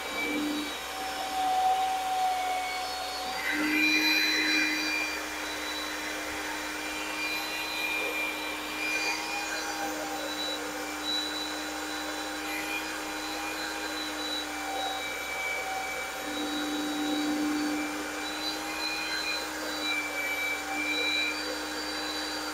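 Cordless drill running steadily, spinning an engine valve against a red abrasive cleaning pad held on the valve head to scrub off carbon before lapping. A steady motor whine that shifts slightly in pitch and strength now and then.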